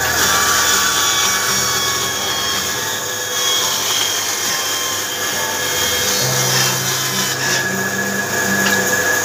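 Power tool running continuously on wood, a steady noise with whining tones that shift in pitch.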